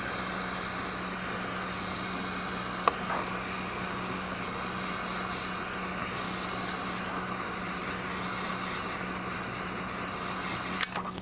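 Small handheld gas torch burning with a steady hiss of flame as it shrinks heat-shrink tubing over a soldered wire splice. A light click about three seconds in and another near the end.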